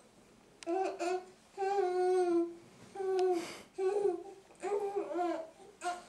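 Baby babbling: a string of about six drawn-out, sing-song vowel sounds, each under a second, with short pauses between them.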